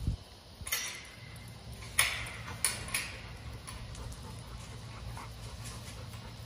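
Sharp metallic clinks from a steel kennel run's gate being handled, four of them in just over two seconds with the loudest about two seconds in, over a steady low rumble.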